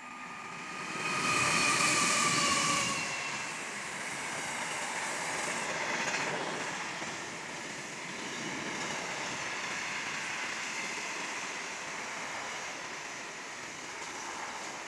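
A freight train runs past, led by Pacific National NR class diesel-electric locomotives. It is loudest for a couple of seconds near the start, when a high steady tone sounds over the noise as the locomotives go by. A long string of steel wagons then rolls past with a steady rumbling noise.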